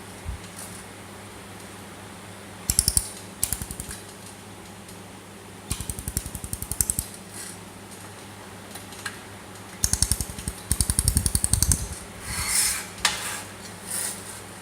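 Pulsed laser welder firing on aluminium plate: runs of rapid, evenly spaced sharp ticks, each run lasting from about half a second to two seconds, over a steady machine hum. A few softer rustling bursts follow near the end.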